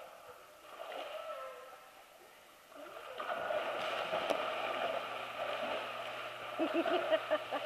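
Water splashing and churning as a dog swims through a pool, growing loud about three seconds in and carrying on, with a steady low hum beneath it.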